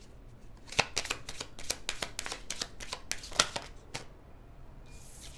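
A tarot deck being shuffled by hand: a quick, irregular run of card snaps and flicks that stops about four seconds in.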